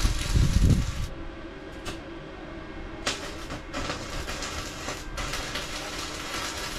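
Electric arc welding: the arc crackling and hissing in several stretches that start and stop, as a steel bracket is tack-welded to window security bars. A low rumble is loudest in the first second.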